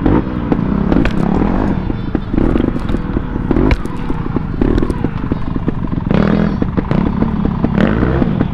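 Off-road motorcycle engine running and revving in short bursts as the bike works up a rocky climb, with clatter and scraping mixed in.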